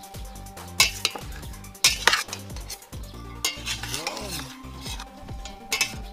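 Metal spoon scraping and clanking against a stainless steel pot while it tosses chopped grilled pork and onions. There is a wet, rustling mixing sound, with several sharp clanks of spoon on pot wall, the loudest about a second and two seconds in.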